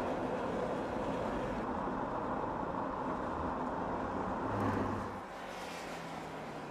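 BMW M5 Competition's twin-turbo V8 driving at speed under heavy road and wind noise. About five seconds in, the sound swells briefly and then drops to a quieter, steady engine note as the car eases off.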